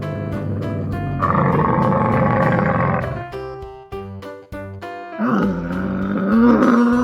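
Camel calling: a rough, noisy roar lasting about two seconds, then from about five seconds in a long moaning call that wavers in pitch. Background music with a plucked beat plays throughout.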